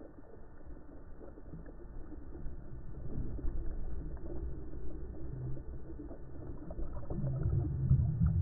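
Underwater water movement picked up by a camera in shallow surf, slowed down: a low, muffled rumble that grows louder, with stronger low surges near the end.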